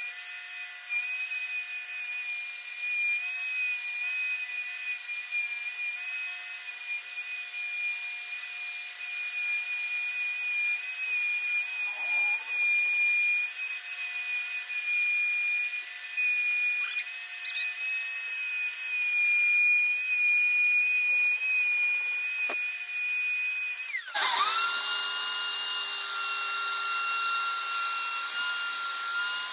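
Electric power saw running with a steady high whine as it cuts a plywood board along a traced outline. About 24 seconds in, the whine jumps louder and settles at a higher, different pitch.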